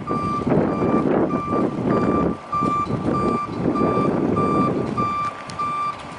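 A truck's reversing alarm beeping steadily, about three beeps every two seconds, over a loud, rough rumbling noise that dips briefly about two and a half seconds in.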